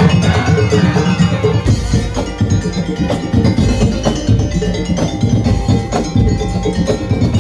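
Madurese ul daul (tong-tong) percussion ensemble playing a fast, dense rhythm of drums and struck wooden percussion, with ringing metal tones over it.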